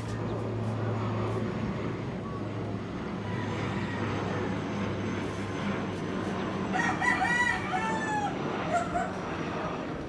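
A rooster crowing once, about seven seconds in, over a steady low hum.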